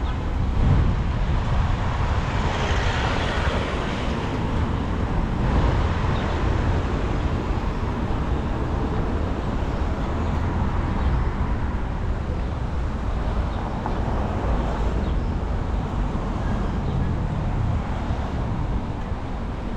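City street traffic noise: vehicles passing on a residential avenue, loudest about two to six seconds in, over a steady low rumble.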